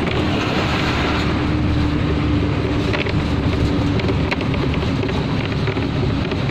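Steady rush of wind and road noise with engine drone from inside a moving vehicle, heard through an open window; a low hum holds for the first few seconds.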